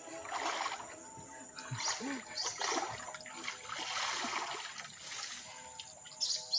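Water splashing in irregular bursts, over faint background music.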